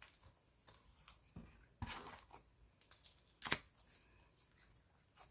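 Thick, stiff cloud-cream slime being kneaded and stretched by hand, giving soft sticky pops and crackles, with two louder pops about two and three and a half seconds in.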